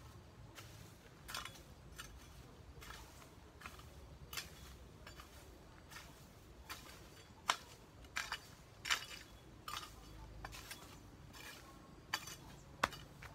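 Long-handled metal hoe chopping into soil and weeds, struck roughly once a second with a few sharp clinks of the blade.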